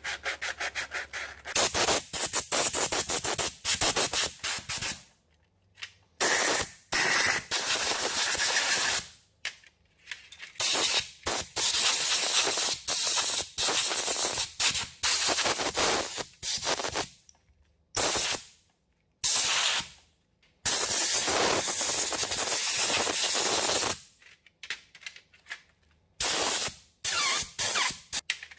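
Repeated short hissing bursts from a hand-held spray nozzle cleaning the drill's motor and gearbox parts, each lasting from half a second to a few seconds, with brief gaps between. The first second or so is sandpaper rubbing on the motor's end.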